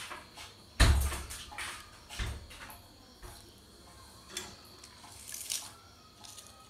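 Metal spoon scooping thick chocolate syrup and knocking against the bowls: scattered clinks and scrapes, with a heavier knock about a second in and another a couple of seconds later.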